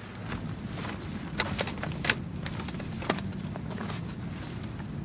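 A folding camp chair being opened out: a few scattered light clicks and knocks from its metal frame, over a steady low background.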